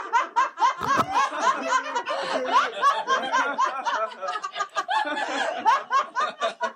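Several people laughing together after a punchline: overlapping snickers and chuckles that go on throughout, with a brief low thump about a second in.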